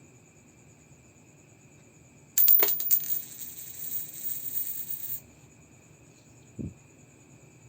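Singapore one-dollar coin dropped: a sharp clatter of several quick bounces, then a bright metallic ringing as it spins and settles for about three seconds, stopping abruptly. A short, dull thump follows near the end, over steady background cricket chirping.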